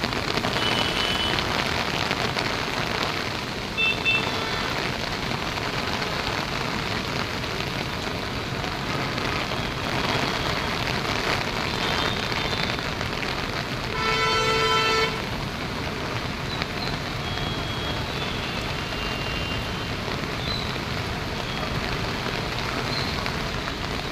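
Steady rush of water without a break. A vehicle horn sounds once for about a second about halfway through.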